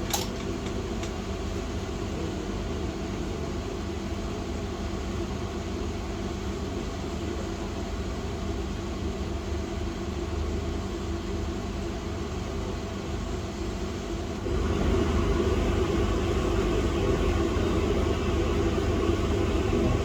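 Steady blowing hum of a workbench air blower, with a click at the start; about two-thirds of the way in it steps up to a louder, fuller rush of air.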